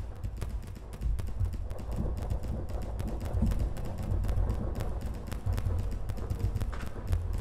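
Live electronic noise music: a deep low rumble with dense, irregular clicks and crackles over it, growing louder about a second in.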